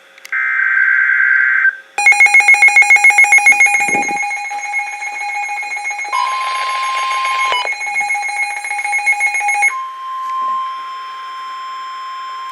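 NOAA Weather Radio emergency alert: a brief burst of digital SAME header data, then a loud electronic alert tone that pulses rapidly for about a second and a half before holding steady. A second steady tone joins about six seconds in and runs on alone for the last few seconds. The tones signal a severe thunderstorm warning.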